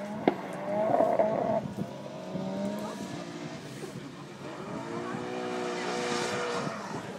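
Drift car engine revving, then held at a steady high pitch for about two seconds near the end. A single sharp click comes about a third of a second in.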